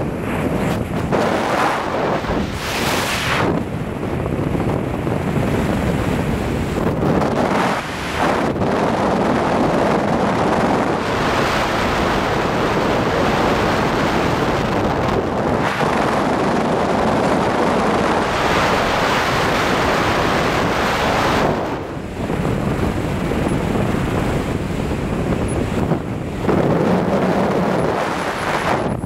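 Loud, gusting wind rush buffeting an action camera's microphone during a tandem parachute descent under an open canopy, with a couple of brief lulls.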